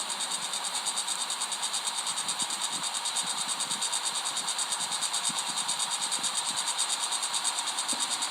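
Crickets chirping in a steady, rapidly pulsing high-pitched chorus.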